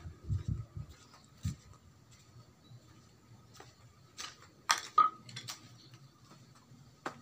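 Handling and footstep noise from someone walking with a handheld camera on stone paving: a few dull thumps, then scattered sharp clicks about four to five and a half seconds in, and one more near the end.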